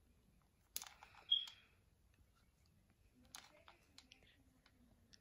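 Faint clicks and rustles from a hot glue gun and a strip of corrugated cardboard being handled while glue is run along the cardboard's edge, with a brief high squeak about a second and a half in.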